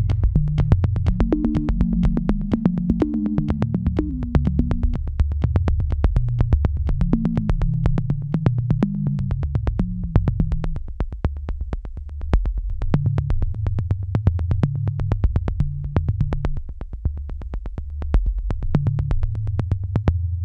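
Electronic background music: a synthesizer bass line moving under a steady ticking beat.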